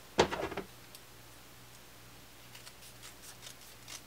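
Patterned paper being handled and trimmed: a short cluster of clicks and rustles just after the start, then faint light ticks of paper handling.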